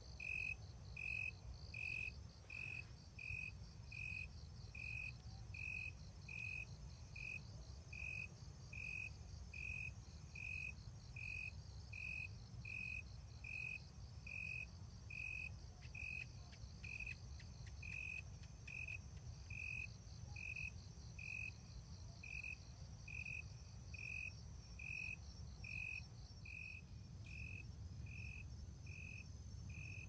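Insects calling in a forest: one chirp repeated evenly about one and a half times a second, over a fainter, faster trilling of other insects higher up and a low steady rumble.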